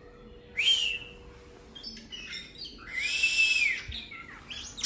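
Oriental magpie-robin singing: a short clear whistle that rises and holds, then a longer whistled note that rises, holds and falls, with a few short chirps in between.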